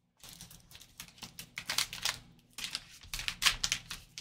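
Black plastic trading-card hit pack crinkling and crackling in gloved hands as it is torn open. It makes an irregular run of sharp crackles, loudest about halfway through and again near the end.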